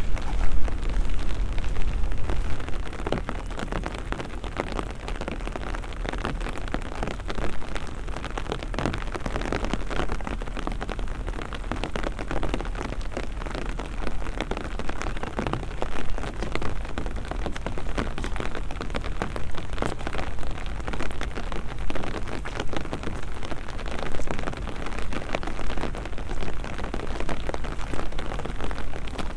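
Steady rain, with many close drops pattering, over a low rumble. It is loudest for the first second or so and then settles.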